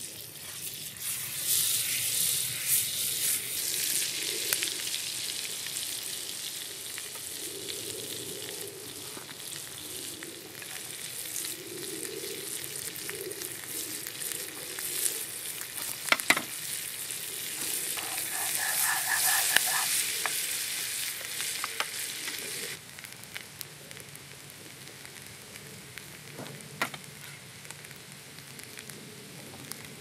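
Butter sizzling in a steel frying pan over a wood fire, with chopped garlic frying in it. It is a steady hiss with a few sharp clicks a little past halfway, and the sizzle turns quieter about three quarters of the way through.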